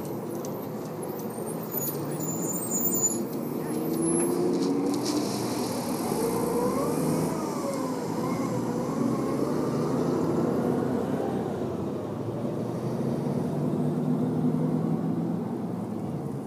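Road traffic going by: car engines and tyres on the street, with an engine note that rises and wavers about the middle.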